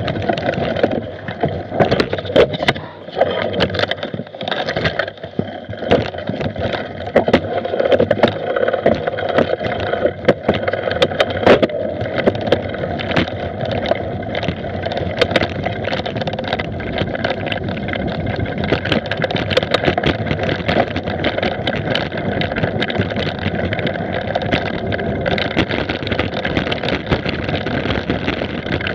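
Mountain bike ridden fast over a forest dirt trail, heard from the rider's camera: a steady rush of wind on the microphone mixed with knocks and rattles from the bike over bumps. The rattling is thick through the first half and gives way to a smoother, steadier rush later on.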